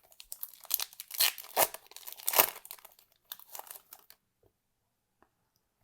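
Wrapper of a 2021 Topps Finest baseball card pack being torn open and crinkled: crackling tears for about four seconds, loudest near the middle.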